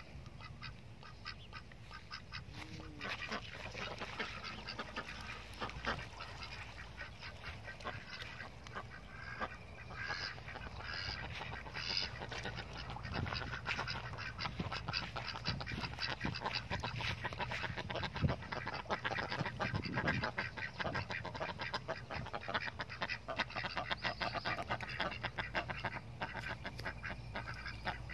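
A flock of domestic ducks quacking continually, a rapid chatter of many short calls that grows busier and louder in the second half.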